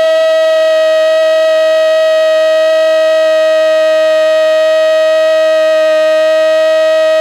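A male football commentator's long drawn-out "goool" goal cry, held loud on one steady high note after a quick rise in pitch.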